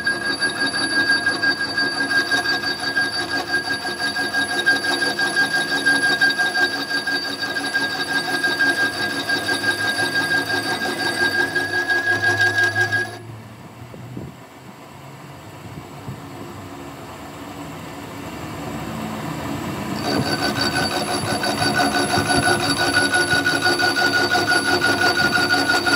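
A rotating cutter driven by a lathe cuts gear teeth into a metal blank, giving a steady metal-cutting squeal over a rapid rhythmic chatter. The cutting noise drops away about 13 seconds in and comes back about 20 seconds in.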